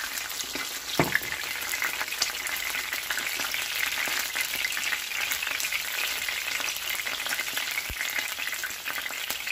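Oil sizzling and crackling steadily around two breaded pork schnitzels shallow-frying in a nonstick pan, with one light knock about a second in.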